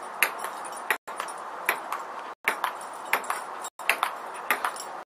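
Table-tennis ball clicking sharply on the table and bat in an irregular rally, about one or two clicks a second, over a steady background hiss that cuts out briefly a few times.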